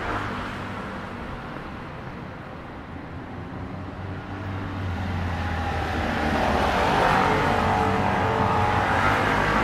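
City street traffic: motor vehicles passing, with engine noise and tyre hiss growing louder in the second half as a vehicle draws close.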